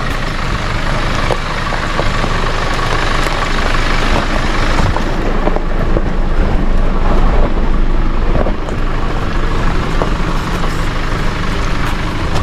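Four-wheel-drive vehicle's engine running at low speed while it crawls over a rough bush track, tyres crunching on the dirt and stones, with a few short knocks scattered through.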